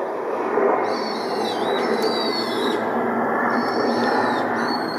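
Steady rushing roar of an FDA Embraer regional jet's engines on approach to land. Over it, a bird gives short, high squealing calls several times.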